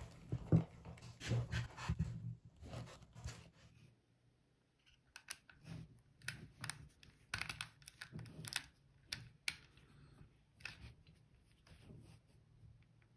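Small screwdriver clicking and scraping in the terminal screws of a plastic Meltric DSN30 receptacle as stripped wires are pushed in and the screws are tightened down. The clicks come in irregular short clusters, with a second-long lull about four seconds in.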